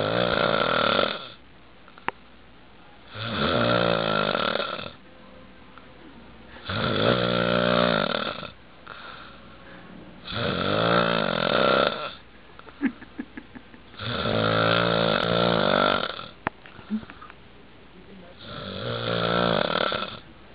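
A man snoring heavily in deep sleep: six long, loud snores come evenly about every three and a half to four seconds, with quieter breathing between them.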